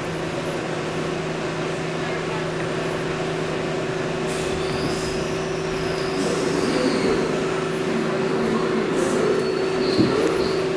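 R62A subway car rolling and braking to a stop in a station, with a steady hum of its running gear, faint high brake squeals from about four seconds in, and a short knock about ten seconds in as it stops.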